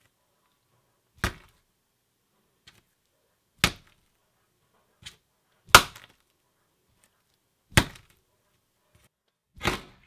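A brain-shaped squishy splat ball thrown down onto a table again and again. Each throw lands with a sharp splat, five loud ones about two seconds apart with a fainter one in between.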